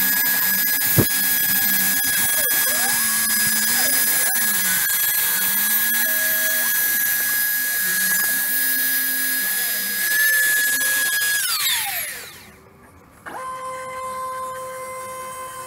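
CNC router milling fibreboard: the spindle runs with a steady high whine while the stepper motors hum underneath, gliding up and down in pitch as the gantry moves. About twelve seconds in the spindle winds down, falling in pitch until it stops, and a steady lower hum starts about a second later.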